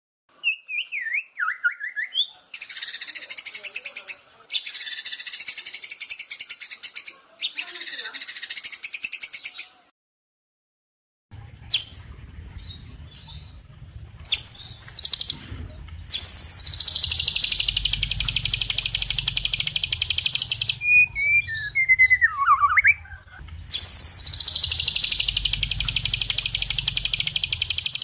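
Recorded songbird song used as training ('masteran') material: long, loud, rapid rattling trills alternating with short whistled notes that sweep down in pitch. It breaks off about ten seconds in, and after a brief gap a second recording continues over a low steady hum.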